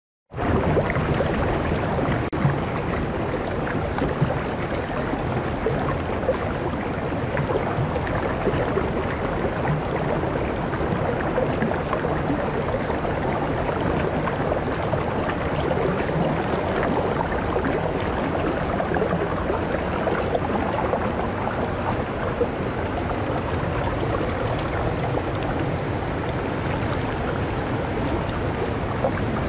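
Waterfall water rushing steadily, with an occasional faint knock.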